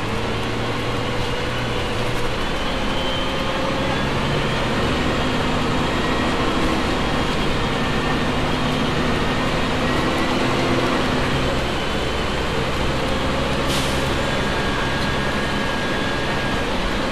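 Diesel bus engine idling steadily, with a brief hiss about three-quarters of the way through.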